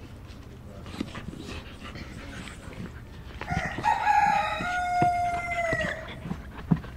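Rubber chicken squeaky toy being chewed by a husky: small chewing clicks, then about three and a half seconds in one long squawk from the toy as she bites it, lasting about two and a half seconds and falling slightly in pitch at the end.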